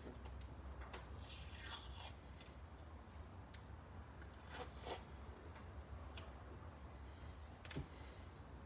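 Athletic tape being pulled off the roll and torn, a few short tearing strokes about a second, five seconds and eight seconds in, over a steady low hum.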